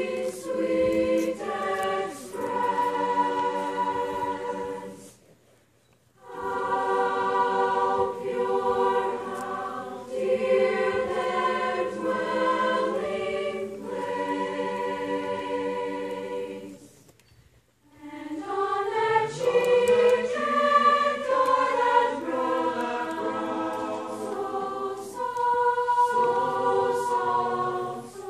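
Mixed-voice high school concert choir singing sustained chords, breaking off into near silence twice, about five seconds in and again about seventeen seconds in, then coming back in.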